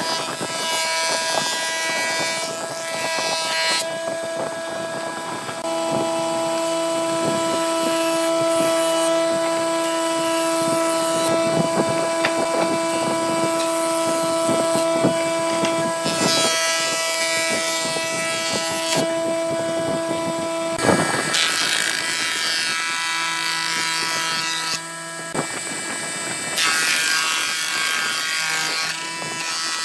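A jointer and a thickness planer run with a steady motor whine while boards are fed through their cutterheads. Several cutting passes each add a loud hiss that comes and goes.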